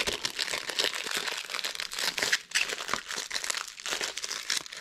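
Clear plastic packaging crinkling as a rolled, plastic-wrapped diamond painting canvas is handled and turned over in the hands, a dense run of quick irregular crackles.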